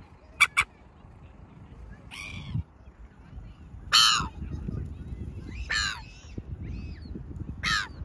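Silver gulls calling: two quick sharp notes about half a second in, then four harsh calls that fall in pitch, spaced about every two seconds, the loudest in the middle, over a low background rumble.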